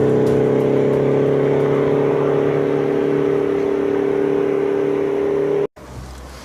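Background music: a sustained, slowly rising synthesizer drone that cuts off abruptly near the end.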